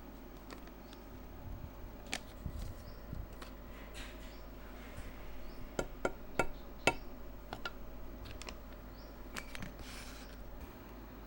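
Kitchen utensils clicking and knocking against dishes: scattered sharp taps, with a quick cluster of the loudest ones about six to seven seconds in, over a low steady hum.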